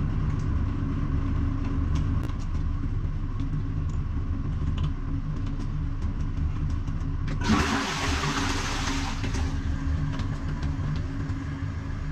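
A steady low mechanical drone, like a motor running, with a burst of hiss lasting about two seconds a little past halfway.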